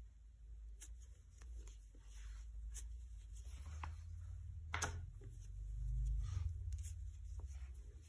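Soft rustling and scraping of chunky t-shirt yarn pulled through loops on a 12 mm plastic crochet hook as chain stitches are worked, with faint scattered clicks, one sharper click about five seconds in, and a low handling rumble that swells around the sixth second.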